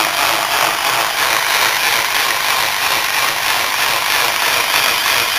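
Cut-away rotary refrigeration compressor pump spun by an external drive, running with a steady, even mechanical whir. It runs unloaded: with no head on it, it is drawing gas through and not compressing anything.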